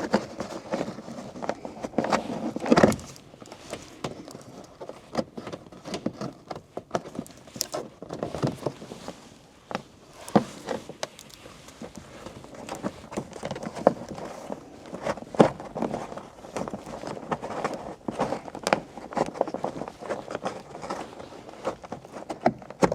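Irregular clicks, taps and rustling of hands pushing a dashcam power cable in behind a car's plastic pillar trim and the door opening's rubber weatherstrip.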